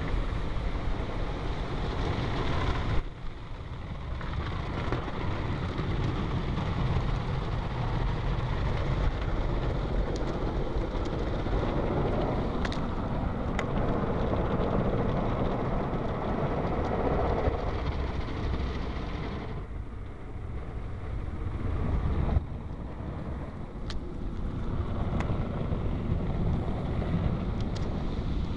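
Ryko SoftGloss Maxx car wash brushes spinning and scrubbing over the car with water spray: a loud, continuous rumbling wash. It changes abruptly a few seconds in and again about two-thirds of the way through as the brushes move on and off.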